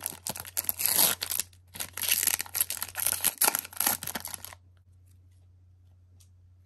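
Foil trading-card pack wrapper crinkling and tearing open, a dense crackle lasting about four and a half seconds that stops abruptly. A low steady hum is left underneath.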